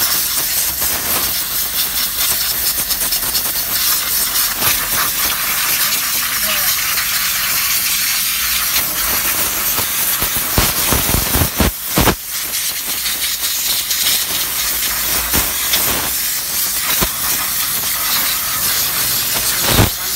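Engine-wash spray gun with a yellow canister hissing steadily as it sprays cleaning liquid over a diesel engine. A few short, sharp bursts come about halfway through and again near the end.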